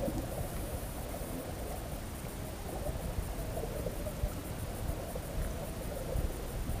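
Muffled underwater sound as picked up by a camera in a waterproof housing: a steady low rumble of moving water with a faint, wavering tone in the middle.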